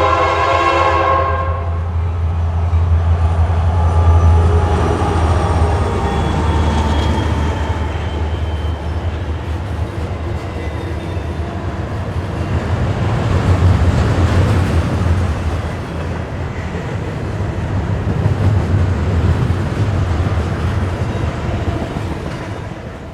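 Nathan Airchime K3LA three-chime air horn on a Norfolk Southern locomotive ending its blast about a second and a half in. The train then passes close by: a steady low rumble from the locomotive and the rolling clatter of railcars on the track, swelling and easing, and fading near the end.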